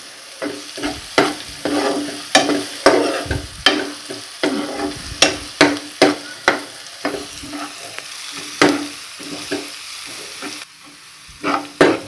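Chopped onions sizzling in hot oil in a nonstick frying pan while a steel spoon stirs and scrapes them against the pan, about two strokes a second. The stirring stops for a moment near the end, then starts again.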